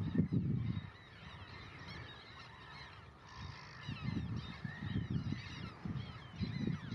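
A flock of little gulls calling, with many short, overlapping, squealing calls that grow busier about halfway through. Loud, irregular low rumbling bursts come in at the start and again in the second half.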